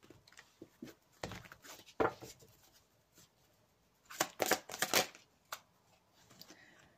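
A deck of oracle cards shuffled by hand in short bursts of flapping and clicking card edges, with a denser flurry about four seconds in.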